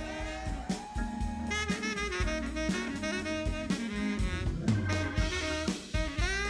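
Jazz music: a saxophone playing a melody over a drum kit keeping a steady beat.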